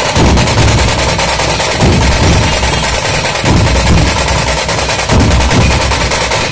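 Dhol-tasha troupe playing loudly: the tashas rattle out a fast, unbroken stick roll while the big dhol barrel drums beat in heavy groups about every one and a half seconds.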